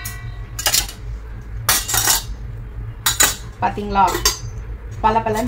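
Stainless steel spice-box cups and lid clinking and knocking as they are handled, a few separate clinks over a low steady hum.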